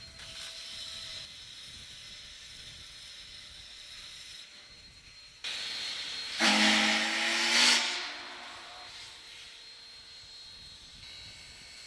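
Union Pacific 844's steam whistle: a sudden hiss of steam, then a short, loud whistle blast of several tones together over the hiss for about a second and a half, fading out.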